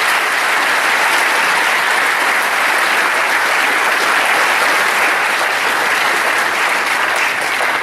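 A large audience applauding steadily, the dense clapping of many hands.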